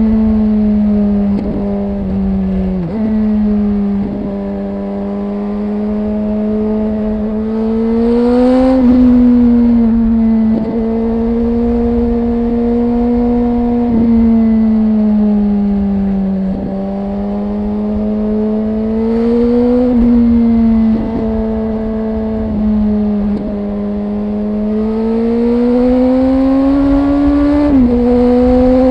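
Suzuki GSX-R 1000 inline-four engine and exhaust under way, the engine note rising and easing off at moderate revs with about eight quick gear changes where the pitch steps abruptly. A low wind rumble runs underneath.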